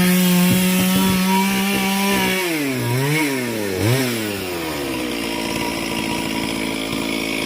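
Two-stroke chainsaw engine held at high revs, then throttled back with two short blips of the throttle, dropping to idle about five seconds in.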